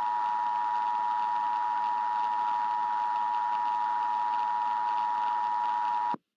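Emergency Alert System attention signal: a steady two-tone alarm with a faint hiss under it, the signal that announces an emergency broadcast message. It cuts off suddenly near the end.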